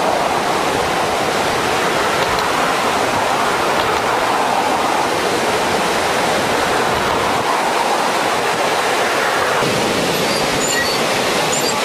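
Fast, muddy floodwater rushing and churning through the channel at very high velocity: a steady, loud rush of water.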